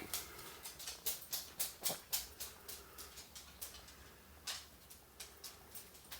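Water being sipped through a paper towel stretched over a cup: a run of short wet sucking clicks, several a second at first, then fewer and more spaced out.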